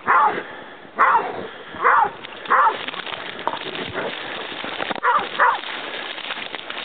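A hound barking loudly and repeatedly, about six barks, each dropping in pitch, roughly one a second with a pause in the middle.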